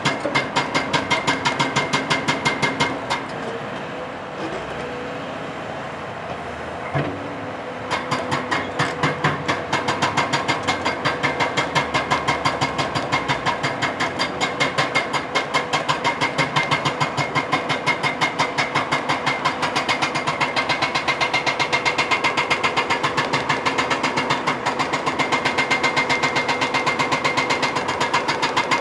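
CAT hydraulic hammer on a CAT 352 excavator pounding bedrock with rapid, evenly spaced blows, over the excavator's steady engine hum. The hammering stops for about five seconds near the start, leaving the engine running with a single knock, then resumes until the end.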